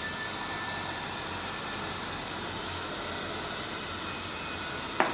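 Steady background hiss with no speech, and a single sharp tap near the end.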